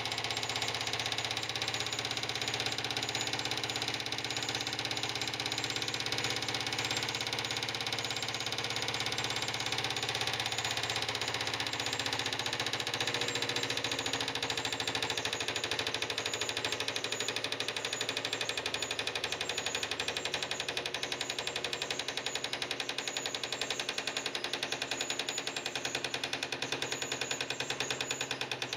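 Model airplane carousel spinning, driven by a toy steam engine: a steady, very rapid mechanical clatter. The individual beats grow more distinct in the second half as the ride slows.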